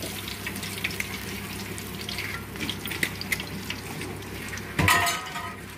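Hot frying oil in a pan sizzling, with many small scattered crackles, and a short louder clatter about five seconds in.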